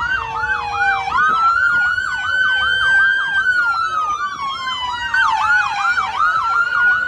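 Emergency vehicle sirens sounding together: one in a fast yelp of about five sweeps a second, the other in a slow wail that falls and rises over several seconds.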